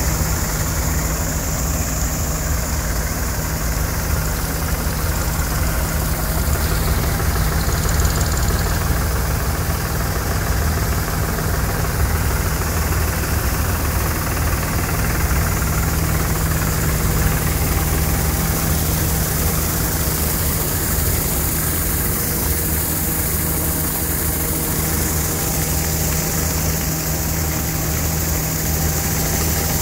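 CLAAS Crop Tiger 40 combine harvester running steadily while its unloading auger empties maize grain into a tractor trolley: a constant low engine hum of unchanging pitch, with a rushing hiss from the working machinery.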